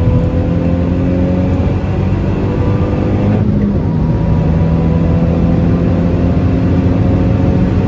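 Hyundai i20N's turbocharged 1.6-litre three-cylinder engine accelerating hard, its pitch climbing steadily, with a brief break and drop in revs about three and a half seconds in as it shifts up, then climbing again.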